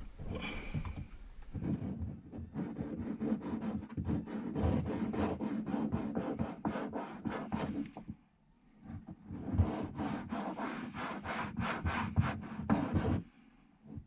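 Tapered-plug seacock being worked rapidly open and closed by its handle, the plug rubbing and rasping in its body in quick repeated strokes, with a short pause about eight seconds in and a stop near the end.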